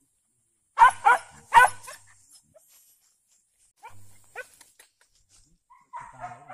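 Hunting dog barking: three loud barks about a second in, then a few quieter short yelps near the four-second mark.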